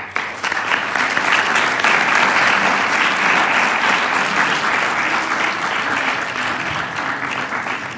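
Audience applauding. The applause starts abruptly and eases off slightly near the end.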